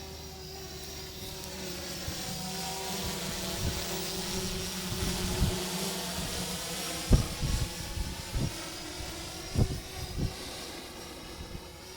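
Yuneec Typhoon H hexacopter's rotors humming steadily in flight, with wind gusts thumping on the microphone several times in the second half.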